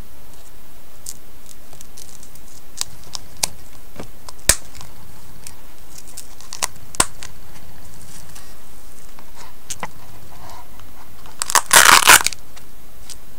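A nylon knife sheath being handled, with scattered light clicks and rustles from its fabric and snap fasteners. Near the end comes a short, loud rasping rip as a hook-and-loop (Velcro) strap is pulled open.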